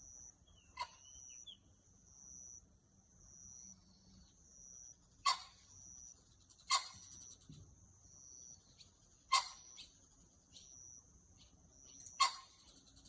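A high insect trill in steady pulses, broken about six times by a short, sharp animal call every couple of seconds.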